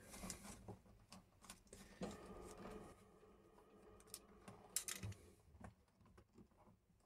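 Faint, scattered clicks and scrapes of a small screwdriver working the terminal screws of a wall socket and knocking on its metal mounting frame, with a short rubbing scrape about two seconds in and a few sharper clicks around the fourth and fifth seconds.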